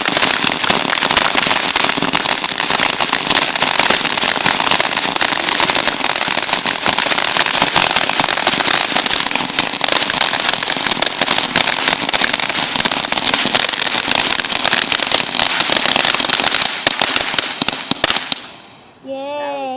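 TNT Fireworks 'Grand Opening' consumer firework going off in its finale: a dense, unbroken barrage of crackling and popping bursts that stops abruptly about eighteen seconds in.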